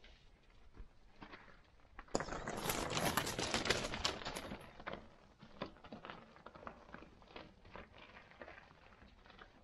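Trek Slash full-suspension mountain bike rolling past over a rocky gravel trail: tyres crunching on loose stones and the bike clattering, loud from about two seconds in for a few seconds and then fading as it moves away. Fainter scattered crunches of gravel before and after.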